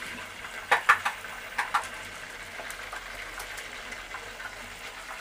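Steady hiss of a pan of homemade pizza cooking on a gas stove, with a few short, sharp pops about a second in and again shortly after.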